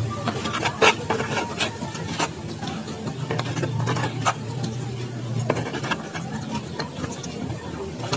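Eating sounds: fingers scraping and picking rice off a plastic plate, with chewing and scattered mouth and finger clicks. A low steady hum runs underneath.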